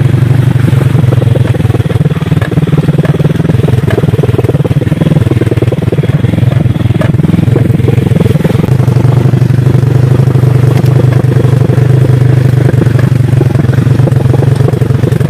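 Small motorcycle engine running steadily while the bike is ridden along a dirt track.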